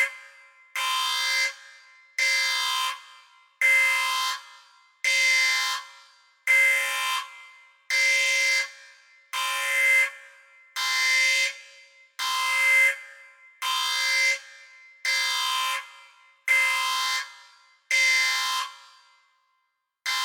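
Spaceship alarm sound effect: a harsh electronic alarm tone blasting over and over, about once every one and a half seconds. Each blast starts abruptly and fades away, with a slightly longer pause near the end before the pattern carries on.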